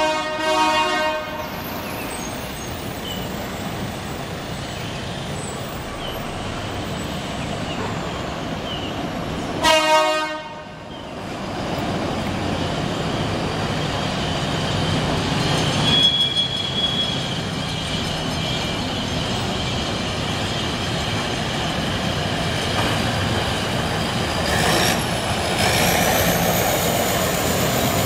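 Diesel locomotive air horn giving two short blasts, one at the start and one about ten seconds in, over the steady rumble of the approaching locomotive. Near the end the engine grows louder and a rising whine comes in.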